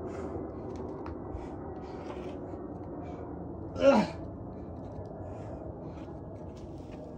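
A climber's short, loud effort grunt that falls in pitch, about four seconds in, as he makes a hard move on the boulder, over a steady low background noise.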